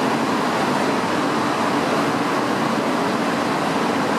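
Steady hum and hiss of a Shinkansen station platform, with no distinct events.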